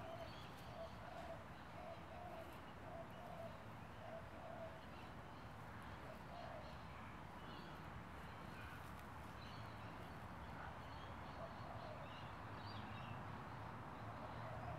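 Faint outdoor ambience with birds calling in the background: a run of short repeated notes through the first few seconds, then scattered higher chirps.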